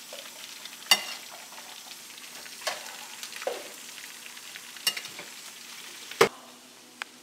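Bacon and pancakes frying on a gas stove, a steady sizzle, with a metal spatula knocking and scraping against the griddle and plate about half a dozen times, the loudest knocks about a second in and about six seconds in.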